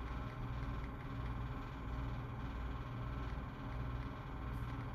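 Steady low hum of indoor background noise, with a faint hiss above it.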